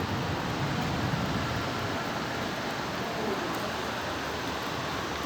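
Heavy rain falling steadily, an even hiss of rain and running water.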